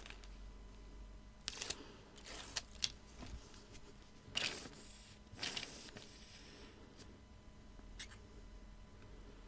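Paper and card being handled on a craft table: a few short, faint rustles and light clicks spread out, with quiet between them.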